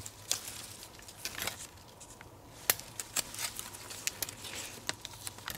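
Faint, scattered small clicks and rustles of a paper deer tag being handled against a knife blade.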